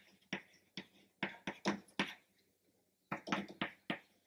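Chalk writing on a chalkboard: a quick run of short taps and scrapes as digits and plus signs are drawn, with a pause of about a second in the middle.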